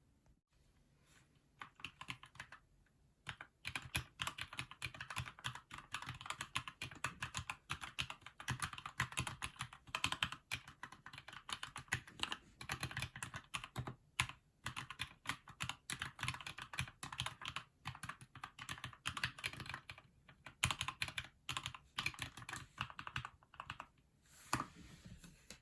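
Fast, continuous typing on a Keychron mechanical keyboard: a dense run of key presses with a few short pauses, starting about a second and a half in and stopping near the end.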